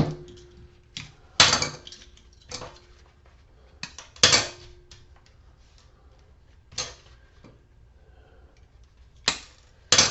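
Sharp snips and clinks of hand cutters trimming the wires off a copper-wound magnetic light ballast: a string of separate cuts a second or more apart, some leaving a short metallic ring.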